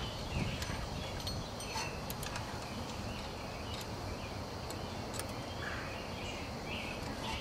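Quiet outdoor background noise with a few light metallic clicks as the drum-type parking brake shoes and their return spring are handled by hand.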